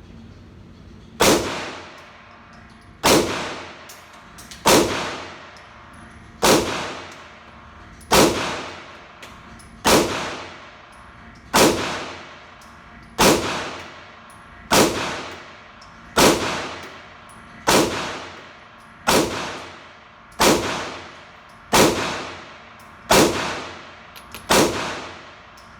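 9mm pistol fired in a slow, steady string of about sixteen single shots, one every second and a half or so, each crack followed by a short ringing echo, emptying the magazine.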